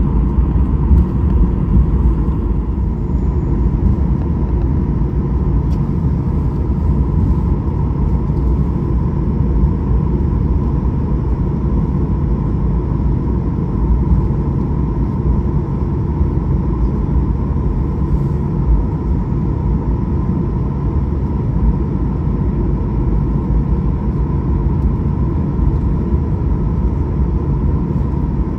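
Steady low rumble inside a Boeing 737-800's passenger cabin with its engines running, with a faint steady hum above the rumble.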